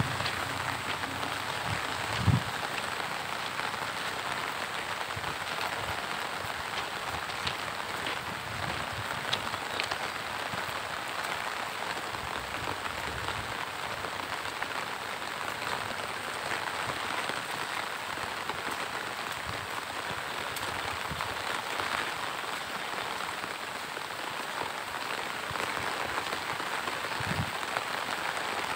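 Monsoon rain falling steadily on leaves and grass, an even hiss. A couple of soft low thumps break through, one about two seconds in and one near the end.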